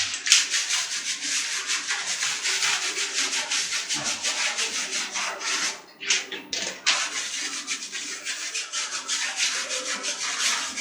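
Soft brush scrubbing removed parts of a split AC indoor unit with surf detergent, in quick back-and-forth strokes, washing off dust and grime. The scrubbing pauses briefly about six seconds in.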